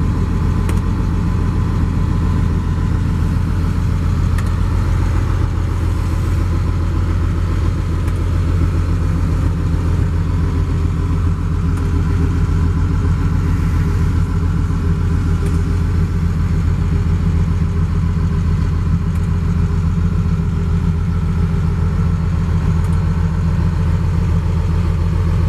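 Daewoo DH130 excavator's diesel engine running steadily at a constant speed.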